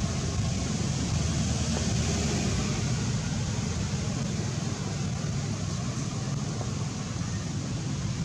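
Wind buffeting the microphone: a steady, flickering low rumble with a hiss above it.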